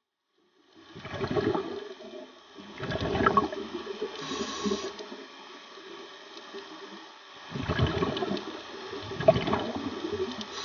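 Scuba diver breathing through a regulator underwater: about four bubbling exhalations, each roughly a second long, with a short hiss of inhalation between them about four and a half seconds in.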